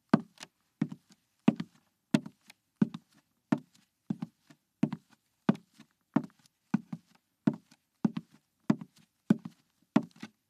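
High-heeled shoes walking at a steady pace, each step a sharp heel click, about one and a half steps a second.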